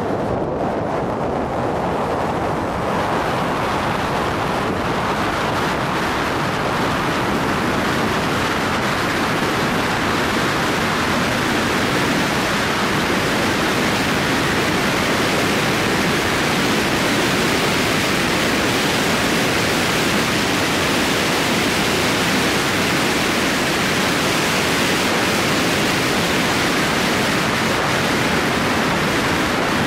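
Steady rushing wind and road noise on a camera mounted outside a moving car. It swells over the first few seconds as the car picks up speed, then holds even, with no clear train sounds standing out.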